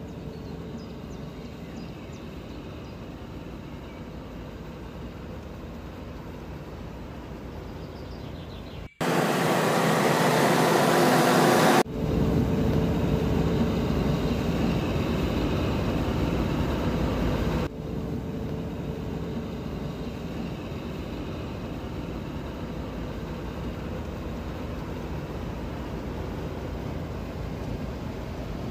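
Claas Dominator 48S combine harvester running steadily in wheat, a continuous machinery drone. The sound jumps abruptly about a third of the way in to a louder, hissier stretch for a few seconds, then changes twice more as the shots change.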